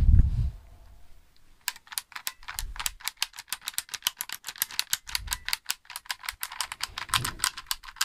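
Small plastic toy with two hammer-swinging figures being worked by hand, rattling off a fast run of sharp plastic clicks, about eight a second, starting a second or two in.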